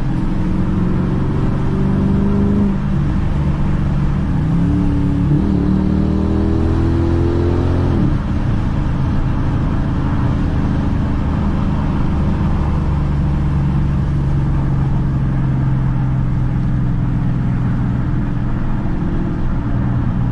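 2012 Dodge Challenger R/T's 5.7-litre Hemi V8 heard from inside the cabin while driving. The engine note climbs and falls back twice in the first eight seconds as it pulls through the gears, then runs steadily at cruising speed.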